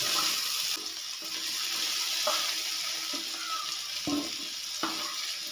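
Cauliflower florets sizzling steadily in hot mustard oil in a non-stick kadai as a slotted spatula lifts them out, with a few light knocks of the spatula against the pan.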